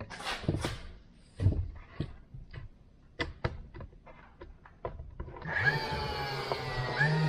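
Wooden boards being knocked and handled, making a run of irregular sharp clacks and taps. Background music comes in about five seconds in.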